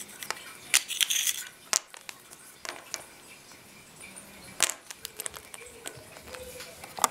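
Small plastic toy figures, a plastic toy bowl and a paper packet handled on a hard countertop: scattered clicks and taps, with a crinkling rustle about a second in.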